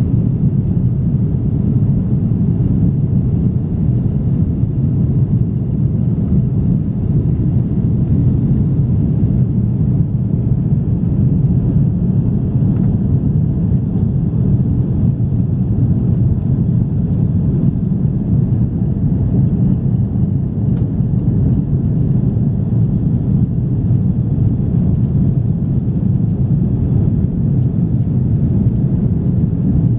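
Steady low rumble of engine and airflow noise inside the passenger cabin of an Airbus A330-343 airliner in flight, powered by Rolls-Royce Trent 700 turbofans.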